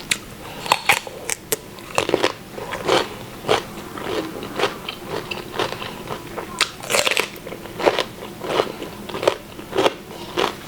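Close-miked chewing of a mouthful of stir-fried mushrooms and rice: irregular wet mouth clicks and smacks, a couple a second.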